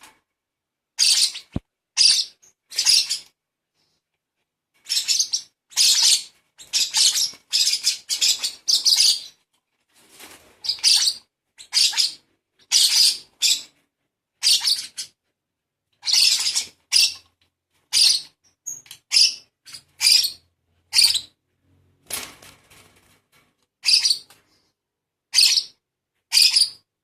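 Hand-fed baby lovebird giving harsh, rasping calls over and over, in short runs of one or two a second broken by brief pauses.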